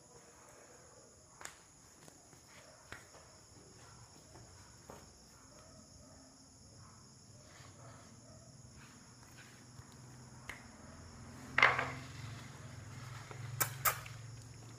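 Puppies scuffling and padding on a tiled floor, with faint scattered clicks, over a steady high chirring of crickets. About two-thirds of the way through, a plastic feeding bowl is set down on the tile with one loud knock. Two sharp clicks follow near the end as the puppies crowd the bowl.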